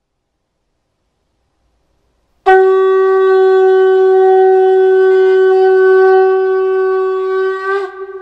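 A blown animal horn, shofar-style, sounding one long steady note that starts about two and a half seconds in. Near the end the note wavers and breaks off.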